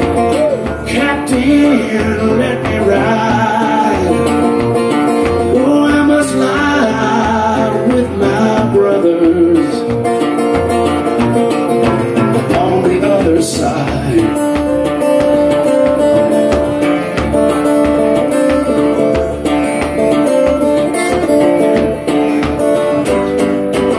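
Blues played solo on acoustic guitar as an instrumental break between verses, picked over a steady low beat about twice a second.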